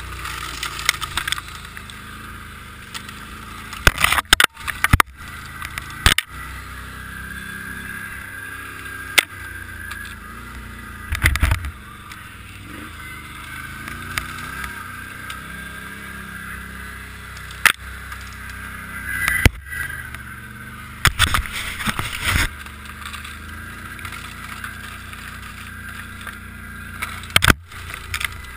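ATV engine running steadily with a whine as the machine ploughs through deep snow. Every few seconds ice-laden branches scrape and snap against the machine and rider in short, loud crackling bursts.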